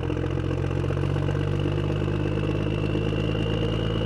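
Engine idling steadily, with a thin high whine that rises slowly in pitch.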